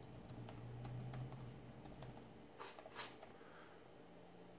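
Faint typing on a computer keyboard, irregular key clicks for about the first two seconds, followed by two short breathy hisses.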